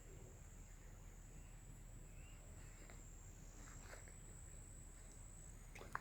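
Faint, steady high-pitched trill of crickets, fading out near the end, with a brief click just before the end.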